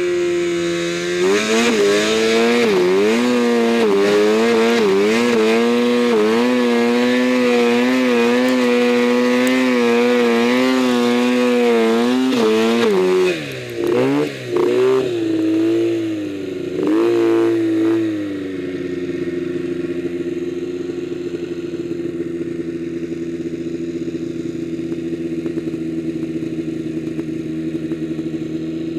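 Arctic Cat M1000 two-stroke snowmobile engine running hard through deep powder, its pitch wavering with the throttle. About halfway the throttle is chopped twice and blipped once. For the last ten seconds the engine holds a steady, lower and quieter note.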